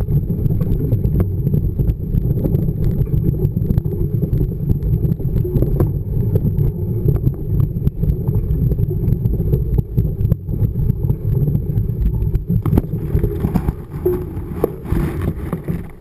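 Mountain bike rolling over loose gravel and stones, heard from a camera mounted on the bike: a heavy, steady rumble of tyre and frame vibration with scattered stone clicks. Near the end the rumble eases and a higher rustle comes in as tall grass brushes close past the camera.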